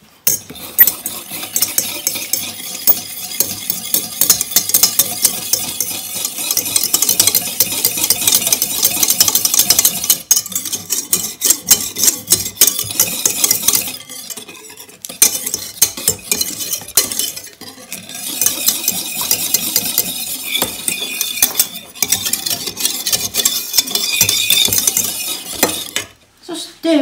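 Wire balloon whisk beating cream and sugar in a stainless steel saucepan, its wires rapidly scraping and ticking against the pan. The whisking pauses briefly a few times and stops near the end.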